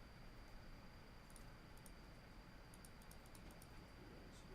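Faint computer mouse clicks: a few scattered single clicks and a quick run of them about three seconds in, over a quiet room with a faint steady high whine.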